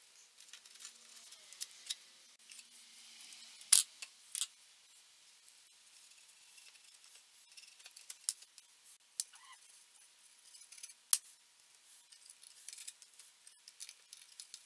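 Scattered small clicks and taps of hand tools against wood: a screwdriver and an applicator stick being handled while epoxy is worked into a crack in an oak chair's seat rail. The sharpest taps come about four seconds in, with a few more near the middle and later.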